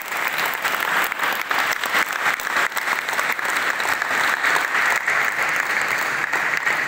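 Large audience applauding steadily, many hands clapping in a hall.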